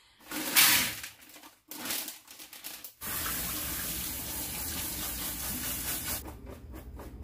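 Kitchen faucet running hot water over frozen corn kernels in a plastic colander in a stainless steel sink, to thaw the corn. The steady rush of water starts about three seconds in and eases slightly near the end, after a brief loud handling noise about half a second in.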